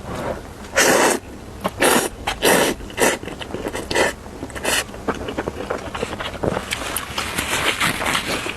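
A person slurping instant noodles, about six short, loud slurps in the first five seconds, then chewing with a quick run of wet, smacking clicks.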